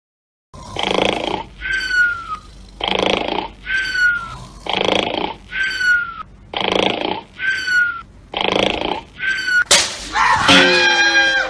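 A person snoring in an exaggerated way: a rasping snort on each in-breath, then a high whistle falling in pitch on the out-breath, five times about two seconds apart. Near the end a sharp crack, then loud laughing.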